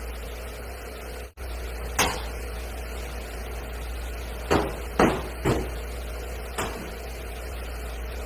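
Car bonnet being shut with one sharp bang about two seconds in, followed by four lighter knocks and clicks on the metal bodywork, over a steady low hum.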